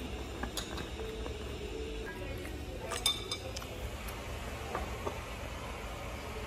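Eating utensils clinking against bowls and plates during a meal: a few light clinks, the loudest about three seconds in, over a low steady hum.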